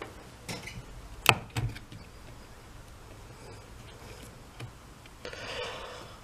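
Small handling noises as parts of a cordless impact driver are pressed into its plastic housing: a sharp click about a second in, a few lighter clicks, then a short rustle near the end.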